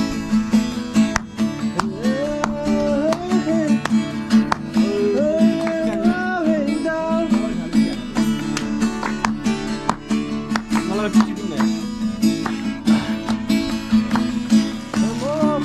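Music: a strummed acoustic guitar, with a melody line bending in pitch over it like a singing voice.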